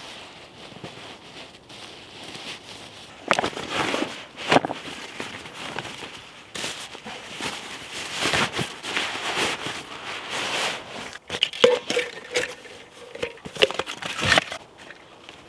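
Camping gear being packed away: irregular rustling and crinkling of fabric and bags, broken by a few sharp clicks.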